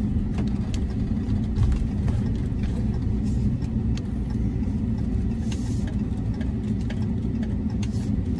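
A pickup truck driving, heard from inside the cab: a steady low rumble of engine and road noise, with a few faint ticks.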